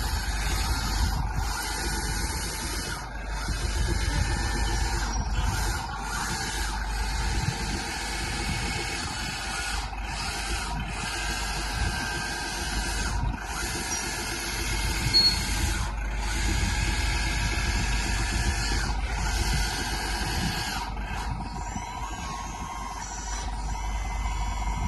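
Electric motors and hydraulic pump of a 1/14-scale metal RC hydraulic bulldozer running with a mechanical whine and hiss, cutting out briefly several times as the controls are worked.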